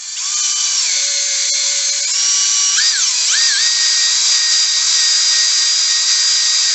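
Cordless drill spinning an oiled silicon carbide ball hone inside a cast-iron cylinder sleeve, honing the bore to a crosshatch for new piston rings. It makes a high motor whine over a dense hiss. The pitch steps and glides as the speed is changed during the first three seconds, then holds steady.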